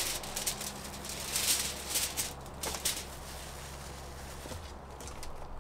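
Plastic bag and aluminium foil crinkling in several short rustling bursts over the first three seconds as asparagus is tipped out onto the foil, then quieter. A faint steady low hum runs underneath.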